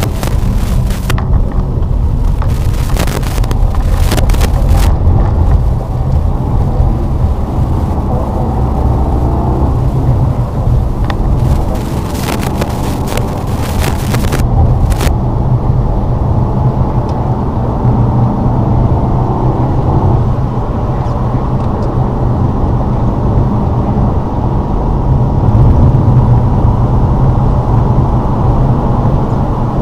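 Lada Vesta driving on a snowy road: a steady low rumble of engine and tyres, with spells of crackly, scraping noise for the first five seconds and again around 11 to 15 seconds in.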